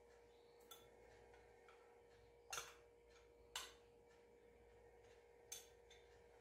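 Quiet kitchen with four faint, sharp clicks spread over a few seconds: a metal spoon tapping and scraping a small glass bowl as honey is scraped into a small saucepan. A faint steady hum runs underneath.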